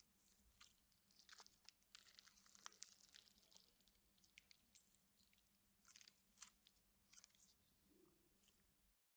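Pink slime packed with styrofoam balls being worked by hand, giving faint, irregular crunches and crackling pops. The sound stops abruptly near the end.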